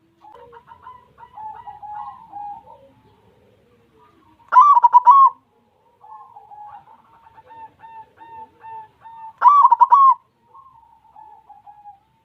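White zebra dove (perkutut) cooing: soft rolling, stuttering coos broken by two loud, ringing coo phrases about five seconds apart.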